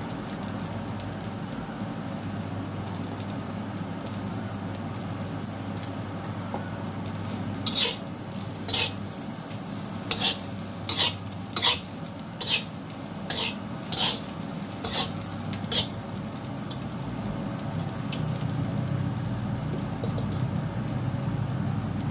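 Fried rice with shrimp sizzling in a steel wok under a steady hiss. From about eight seconds in, a metal spatula stirs and tosses it, scraping and clinking against the wok about ten times over some eight seconds.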